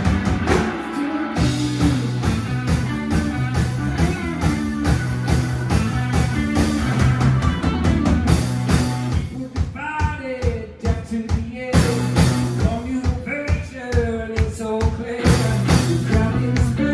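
Live blues-rock band playing: electric guitar, electric bass and drum kit.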